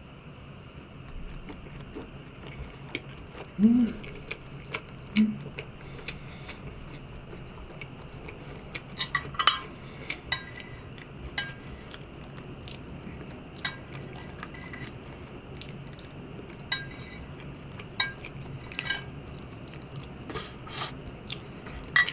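Metal fork clinking and scraping on a large empty ceramic platter, picking up the last crumbs: scattered sharp clinks, more frequent over the second half. Quieter mouth and chewing sounds come earlier.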